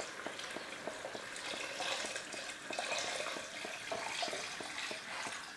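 Water poured steadily into a large pot of stew ingredients, splashing, easing off near the end.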